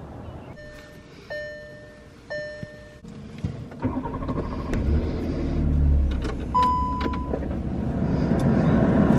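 Car interior warning chime sounding three times, then the car's engine starting about five seconds in, with one more chime. The engine then runs as a broad cabin noise builds toward the end.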